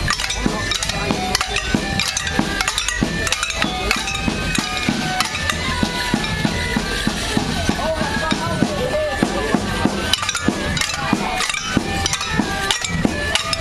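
Morris dance band music on accordion and drum, with the dancers' sticks clacking together many times in time with the tune.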